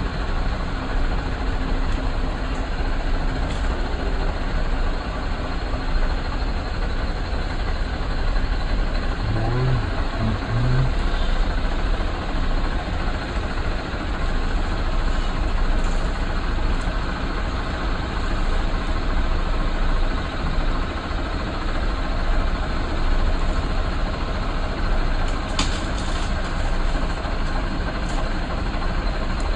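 Safari vehicle's engine running steadily along with its road noise, a continuous low rumble with no breaks.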